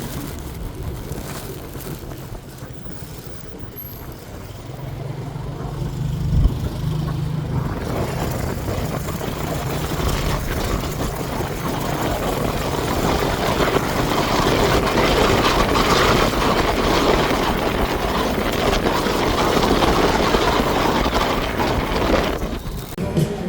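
Motor vehicle running in traffic: a low steady engine hum with a single knock about six seconds in, then road noise that grows louder from about eight seconds on and falls away near the end.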